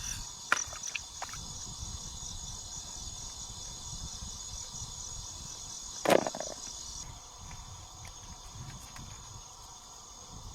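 Insects trilling in a steady pulsing chorus, which becomes fainter about seven seconds in. A few light clicks near the start and one sharp knock about six seconds in.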